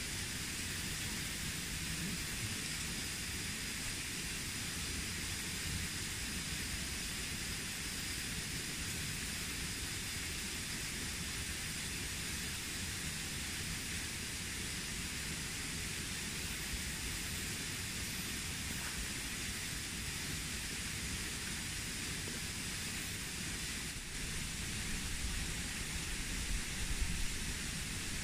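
Steady rushing hiss of stream water flowing. A low uneven rumble joins in for the last few seconds.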